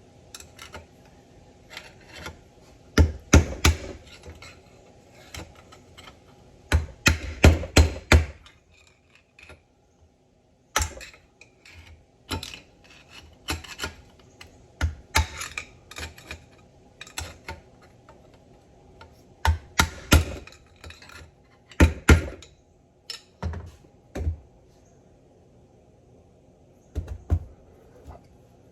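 Hand tools and metal steering-box parts knocking and clinking on a workbench. The knocks are irregular, with quick bunches of sharper strikes about three and seven seconds in, then scattered taps.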